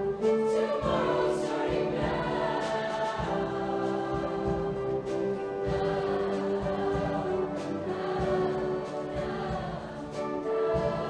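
Show choir singing held chords in full voice over instrumental accompaniment with regular percussive hits.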